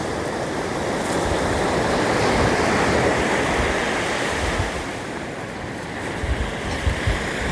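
Ocean surf washing onto a beach: a steady rushing noise of breaking waves that swells to its loudest about three seconds in and then eases. Wind rumbles on the microphone now and then near the end.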